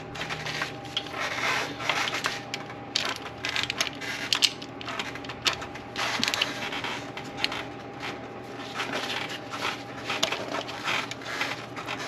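Irregular clicks, taps and scrapes of hand tools and parts being worked around an engine's valve cover and fuel line fitting, over a faint steady hum.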